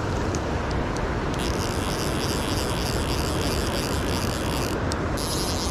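Steady rush of a fast, shallow river running over rocks. From about a second and a half in comes the rapid ratcheting of a fly reel's click drag as line is worked on a hooked salmon; it breaks off briefly near the end, then starts again.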